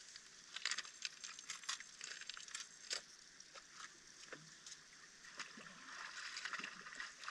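Faint sloshing of shallow seawater around someone wading in, with scattered small clicks and crackles.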